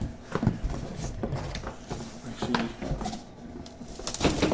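Cardboard shipping box being pulled open by hand: scattered rustles, scrapes and light knocks of the flaps and packing, with a louder cluster of knocks near the end.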